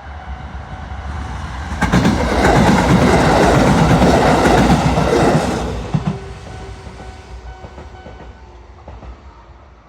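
Sanyo Electric Railway 6000 series electric train passing over a level crossing. It swells to loud for about four seconds, with rapid clicks of the wheels over the rail joints, then fades away. A level-crossing bell rings steadily under it and stops shortly before the end.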